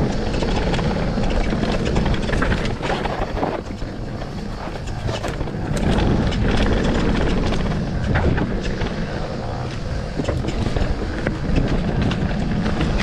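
Mountain bike riding fast down a dirt trail: tyres rolling over dirt and dry leaves and the bike clattering with frequent sharp knocks over bumps, under heavy wind rush on the camera's microphone.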